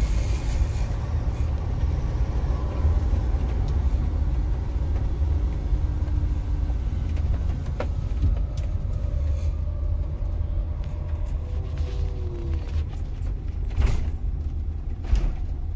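Camping-car engine and road rumble heard from inside the cab as it drives slowly up into a car ferry, a steady low drone with a few short knocks.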